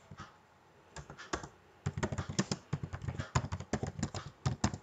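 Typing on a computer keyboard: a few light keystrokes about a second in, then a quick, steady run of key clicks from about two seconds on.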